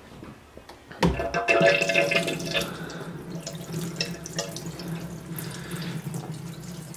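Clarified wastewater gushing out of a PVC drain pipe onto a deep bed paper filter as its ball valve is cracked open. It starts suddenly with a knock about a second in, is loudest for the first two seconds, then settles into a steady pour.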